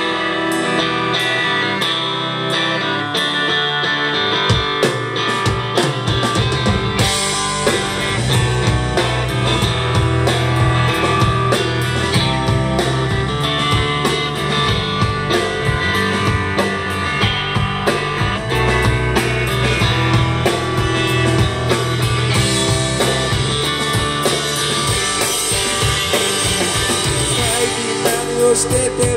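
Live rock band playing an instrumental passage: electric guitars, with bass and drum kit filling out the sound after about five seconds.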